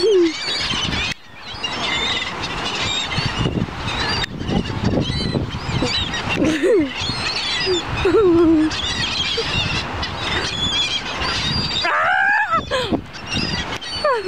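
A flock of gulls calling over and over, many cries overlapping as they crowd in to be fed, over a steady low rumble.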